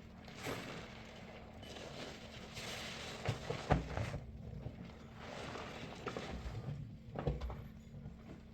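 Soapy sponge loaded with soap paste being squeezed and pressed, with wet squishing in slow waves and a few sharp pops of the foam.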